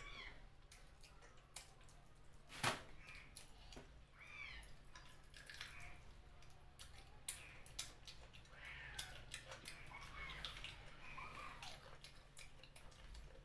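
Mouth sounds of eating chicken feet curry by hand: wet chewing, sucking and sharp clicks, the loudest about three seconds in. A few faint high animal calls sound in the background around the middle and later part.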